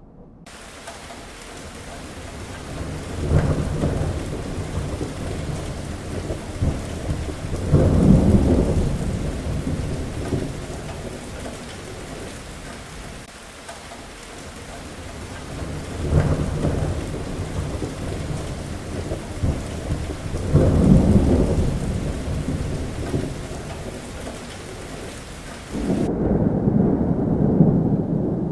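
Heavy thunderstorm: steady heavy rain with rolling thunder that swells and fades about five times. Near the end the rain hiss drops away abruptly, leaving a loud low rumble of thunder.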